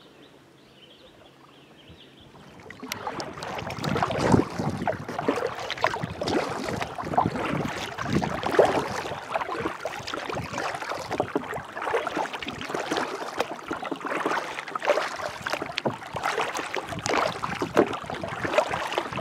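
Water lapping and splashing against a plastic kayak hull as it moves through the water, picked up close by a camera mounted on the bow: a dense, irregular crackle of small splashes that starts about three seconds in, after a quiet opening.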